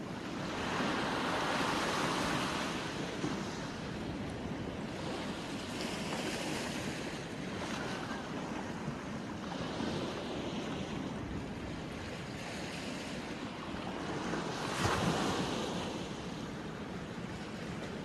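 Small sea waves washing onto the shore, the surf swelling and fading in about four surges a few seconds apart, with wind on the microphone.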